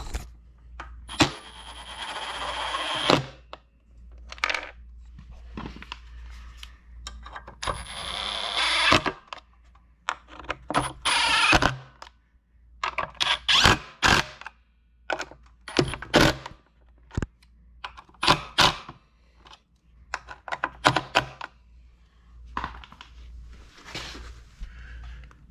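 Cordless drill running in three short bursts of a second or two each, then a string of sharp clicks and knocks as parts and tools are handled.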